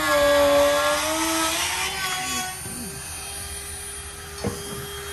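A motor whining at a steady pitch that dips slightly and rises again before fading out after about two seconds, then a steady low hum with one sharp knock near the end.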